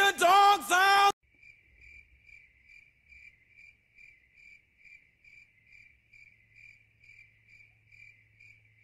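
Crickets chirping in an even, steady rhythm of high chirps, the classic awkward-silence effect. In the first second, a loud pitched sound with three falling notes cuts over them.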